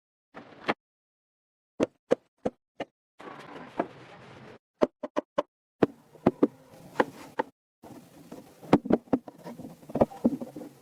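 A series of sharp knocks and taps from hands and tools working wood. They come singly and in quick runs of three or four, in short clips broken by abrupt cuts to dead silence.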